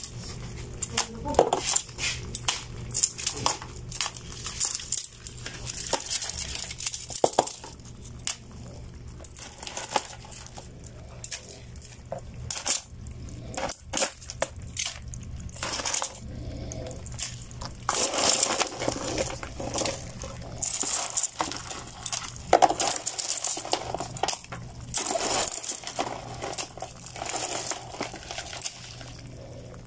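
Clicking and clattering of live crabs' shells and legs against one another and the sides of a plastic basin, in dense, irregular rattles, over a low steady hum.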